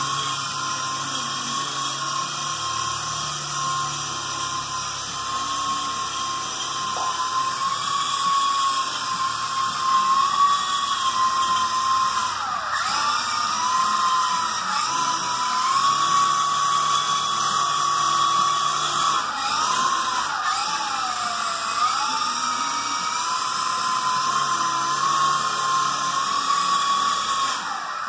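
Small electric motors of a Sky Rover toy remote-control helicopter whining steadily as it hovers, the pitch dipping briefly twice. The whine fades out near the end.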